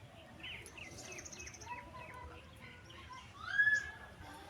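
Several birds calling: a string of short falling chirps and a rapid high trill. The loudest is a clear rising whistle about three and a half seconds in. Faint steady outdoor hiss underneath.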